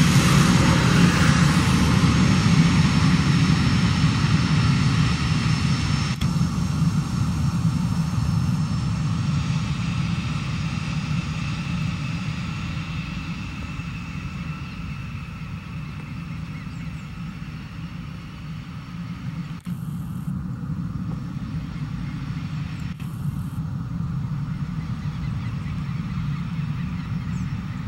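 Airbus A319 jet engines running at taxi power as the airliner rolls past and away: a steady low rumble with a high whine, growing fainter as it moves off.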